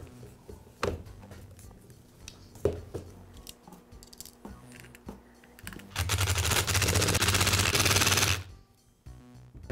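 Power driver, most likely an impact driver, running for about two and a half seconds with a rapid, dense rattle of blows as it drives a screw into the polisher's plastic housing. Before it come a few light clicks and knocks of the housing parts being handled.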